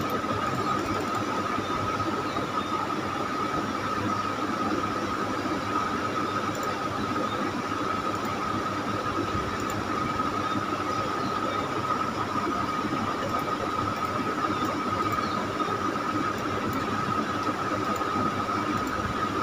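Steady hiss of background noise with a constant high-pitched whine over it.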